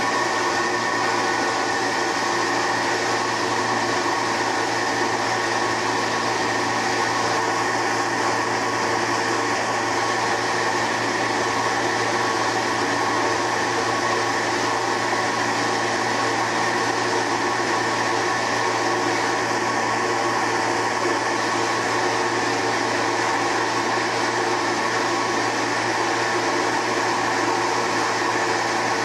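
Small automatic soymilk-making machine running: a steady machine hum with several held tones over a constant hiss.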